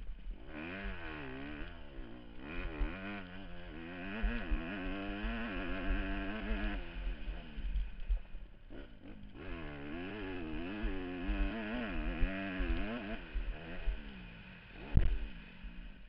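Motocross bike engine revving up and down over and over as the rider works the throttle around the track, heard from a helmet-mounted camera with a low rumbling buffet underneath. The engine drops away briefly about halfway through, and a single sharp knock comes near the end.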